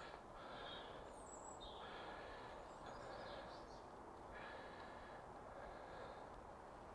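Faint outdoor background noise with distant birds chirping now and then.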